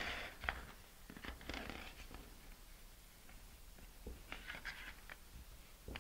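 Hobby knife blade scoring thin vacuum-formed plastic: faint scratchy strokes in a few short spurts, with small clicks in between.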